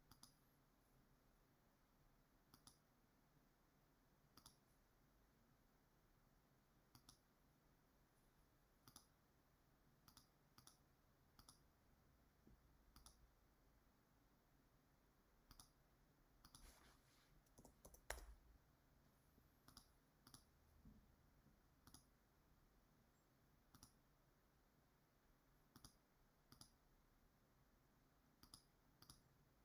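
Faint, scattered computer mouse clicks over near silence, some coming in quick pairs, with one slightly louder knock about two-thirds of the way through.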